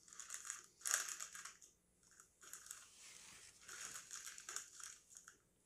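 A crinkly plastic snack bag of Cheetos Crunchy Buffalo being handled and crumpled, crackling in uneven bursts.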